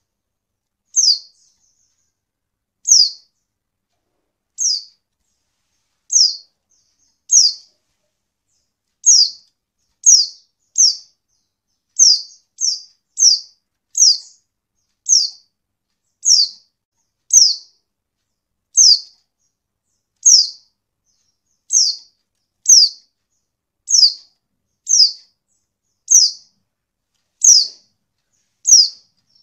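Female white-eye (pleci) giving short, high call notes, each sliding down in pitch, about one a second and sometimes two in quick succession. It is the female's call that stirs male white-eyes to answer and sing.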